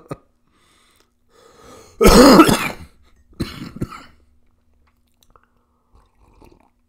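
A person coughing: one loud cough about two seconds in, then a shorter cough about a second later.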